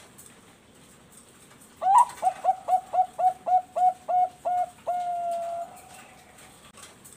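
Bangkok-line zebra dove (perkutut) singing one full song phrase about two seconds in: a rising opening note, a quick run of about ten short coos at roughly four a second, and a long held coo at the end.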